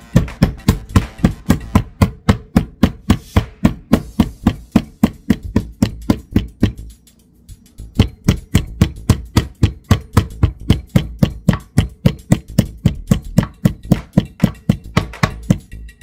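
Small meat-tenderizing mallet pounding a thin pork cutlet flat, quick even blows about three a second with a short pause midway. Music plays underneath.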